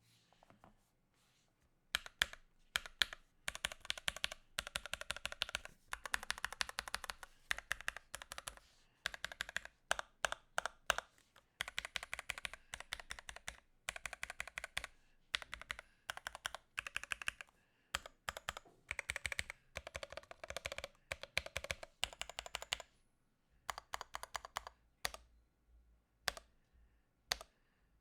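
Typing on a NuPhy Halo65 mechanical keyboard: runs of fast keystrokes broken by short pauses, with a few single key presses at the start and near the end.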